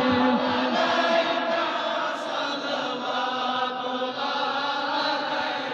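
Soft, steady chanted drone of voices held between lines of a devotional salaam, quieter than the sung refrain around it.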